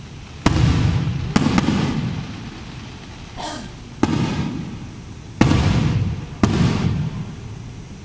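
Aerial firework shells bursting: five sharp bangs in about six seconds, each fading out over a second or so.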